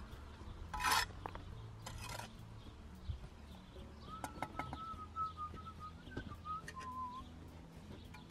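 Steel bricklaying trowel and bricks knocking and scraping as bricks are laid and tapped down in mortar: a few sharp clinks and knocks, the loudest about a second in. In the middle comes a thin, slightly wavering whistle lasting about three seconds.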